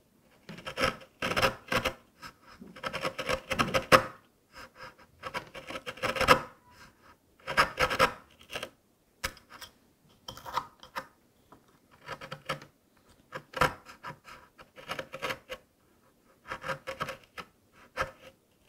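A hand chisel paring end grain in the wall of a half-blind dovetail socket: a dozen or so short scraping strokes as the blade is pushed forward along the scribe line, with brief pauses between them.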